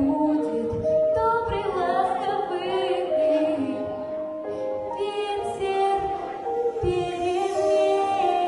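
Song with female singing over an instrumental backing track: long held sung notes, some with vibrato.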